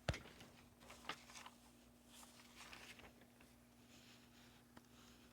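Near silence: a faint steady hum, with a soft click just after the start and a few fainter clicks and light rustles after it.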